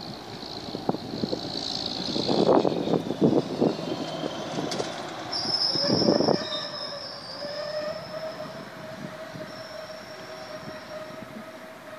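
Freight train with an orange wagon rolling away on an overgrown single-track line: irregular clunks and knocks from the wheels and wagons in the first half, then a steady high-pitched wheel squeal from about halfway that slowly fades.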